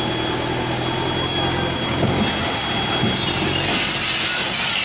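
Diesel engine of a Caterpillar wheel loader running steadily under load as its bucket pushes into a shop's concrete roof.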